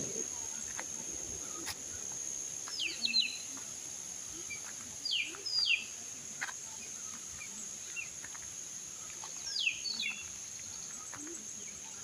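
Insects drone steadily at a high pitch while a bird gives short, sharply falling chirps, in three quick groups.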